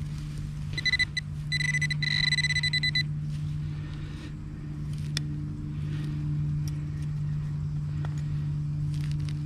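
Metal detector sounding on a target: a high electronic beep, a short one about a second in, then a longer, slightly pulsing tone lasting about a second and a half. A steady low hum runs underneath.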